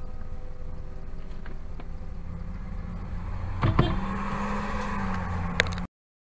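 Low, steady car engine hum heard inside the cabin of a stopped car. About three and a half seconds in, a louder passing-vehicle sound comes in with a couple of knocks and a click: an ambulance driving past with no siren. The sound cuts off abruptly just before the end.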